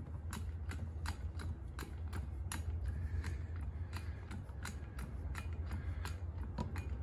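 Hand-pumped portable hydraulic ram pressing out a bent aluminium wheel lip: a run of sharp, irregular clicks, about three a second, over a steady low hum.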